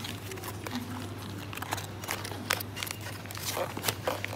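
Plastic snack pouches crinkling and rustling in bursts as they are grabbed out of a shelf box, over a steady low hum.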